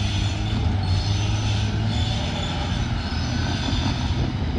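Freight train rolling past: a steady rumble of wheels on rail with thin, high wheel squeal over it.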